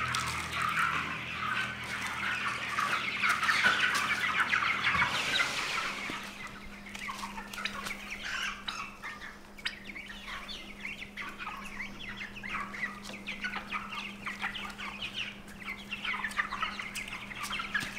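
A brooder full of young meat chickens and turkey poults chirping and peeping in a dense, overlapping chatter. The calls thin out after about six seconds.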